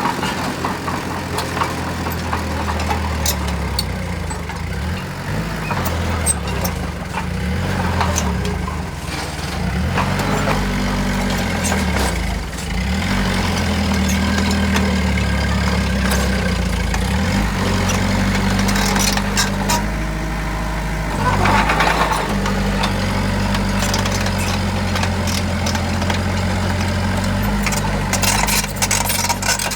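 Heavy diesel engines of earthmoving machinery running, their note rising and falling several times as they work, with scattered clanks and knocks.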